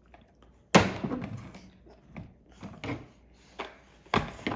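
Hard knocks of toy trucks being banged or dropped: one sharp knock about a second in, then two more near the end.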